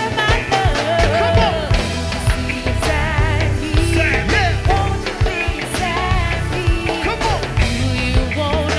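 Live go-go (crank) band music with a steady heavy beat and a wavering lead melody.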